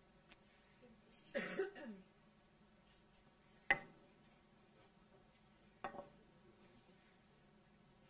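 Wooden rolling pin knocking on a granite worktop while almond paste is rolled out: one sharp knock a little under four seconds in, and a softer knock with a short ring about two seconds later. A brief throat-clearing sound comes about a second and a half in.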